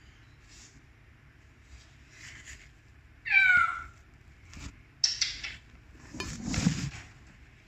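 A single loud meow-like call, falling in pitch, lasting about half a second, about three seconds in, followed by a few short rustling and scratching noises.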